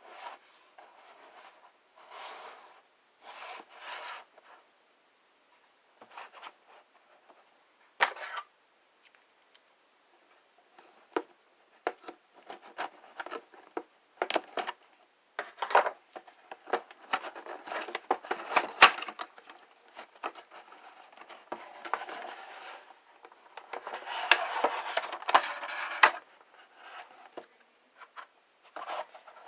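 Toy packaging being handled and opened by hand: cardboard and plastic rubbing, rustling and clicking in short bursts, sparse at first and busier in the second half.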